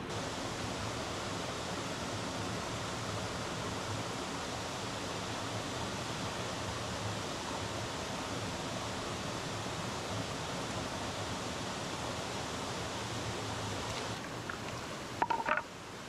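A steady rushing hiss, with a brief clatter and a short metallic clink near the end.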